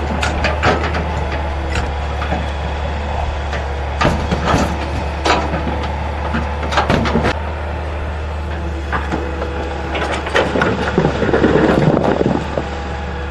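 A heavy machine's diesel engine running steadily, with irregular clanks and knocks from the machine working, busiest near the start, in the middle and near the end.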